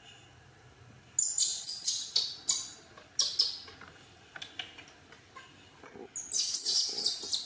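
Baby monkey giving shrill, high-pitched squeals in quick repeated bursts while being handled in its carrier, a first bout about a second in and a second bout near the end.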